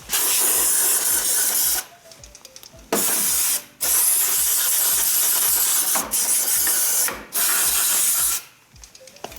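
Aerosol parts cleaner sprayed in five long hissing bursts with short pauses between them, rinsing dirt off an engine part.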